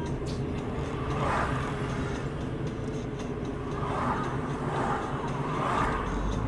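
Steady low hum and rumble of a car driving in city traffic, heard through a dashcam's microphone inside the cabin, with brief swells of hiss about a second in and again between about four and six seconds in.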